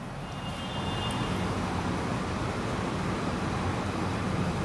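Steady low rumbling background noise with a faint hiss, and a faint squeak of a marker writing on a whiteboard during the first second.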